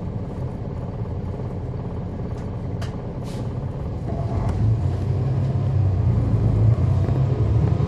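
On-board sound of a NABI 40-SFW transit bus's Cummins ISL9 straight-six diesel running steadily, growing louder from about halfway through. A few faint ticks come near the middle.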